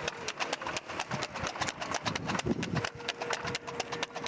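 Harness horse trotting fast on a paved road, pulling a two-wheeled tanga: a quick, even clatter of hooves.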